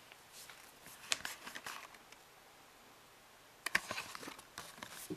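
Faint crinkling and clicking of a cellophane-wrapped cardboard playing-card box being turned and handled in the fingers, in two short bursts, the second starting with a sharp click.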